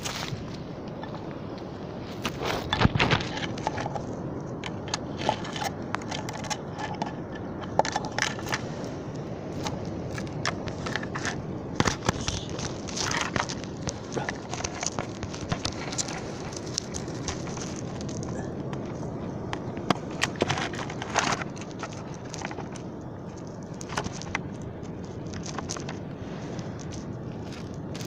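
Steady rush of small waves on a beach, with many sharp crackles and clicks scattered through it, the loudest clusters about three seconds in and around twelve and twenty-one seconds.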